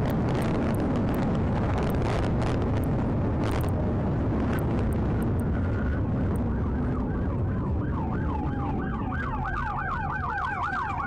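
Heavy wind and road noise from a police cruiser at highway speed, easing as it brakes hard. About seven seconds in, a police siren comes through, wailing and then switching to a fast yelp of about four to five sweeps a second.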